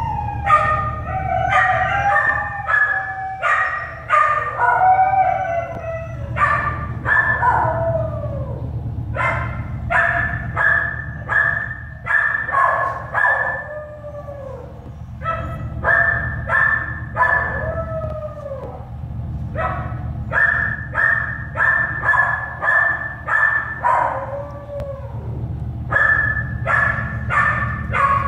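Newborn American Staffordshire Terrier puppies crying in runs of short, high squeals, several a second, many falling in pitch at the end, over a steady low hum.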